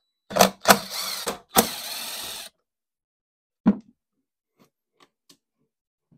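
Cordless drill-driver spinning screws out of the plastic lid of a LiFePO4 battery case, in two short runs. A single knock follows, then a few light clicks.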